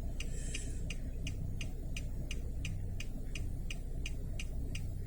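Steady, even ticking, about three ticks a second, over a low steady hum.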